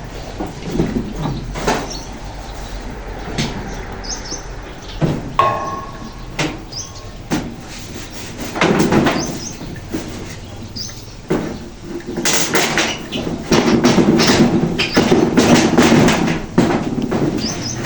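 Irregular knocks, clatter and scraping from hands-on roofing work, with the busiest, loudest stretch of scraping and rustling near the end.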